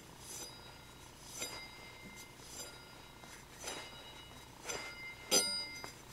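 Minibike rear wheel and sprocket spun by hand on the axle, giving several light, irregular metallic clinks that ring briefly, the loudest near the end.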